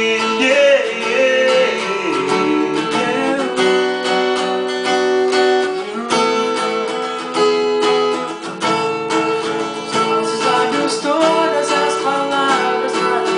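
Music: a Portuguese-language pop song in a stretch between sung lines, with guitar prominent.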